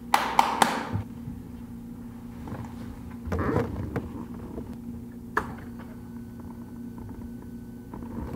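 Clicks and knocks from handling the motorcycle's controls and the mounted camera: a few sharp knocks in the first second, rustling about three seconds in, and a single click about five seconds in as the ignition comes on. After it a faint, steady high whine runs over a steady low hum.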